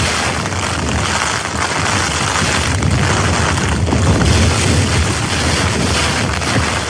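Strong wind gusts battering a tent's fabric and rain beating on the flysheet, heard from inside the tent.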